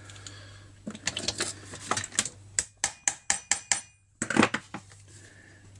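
Hex-bit screwdriver working at stuck screws on a chainsaw's oil-pump cover: scattered metal clicks, then a quick, even run of sharp clicks about six a second, a short pause, and a louder metallic clatter a little past halfway.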